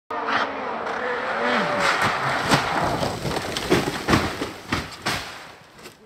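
Ford Fiesta WRC rally car's turbocharged engine running hard on a gravel stage, its pitch sliding up and down, with repeated sharp cracks and bangs; the sound fades away near the end.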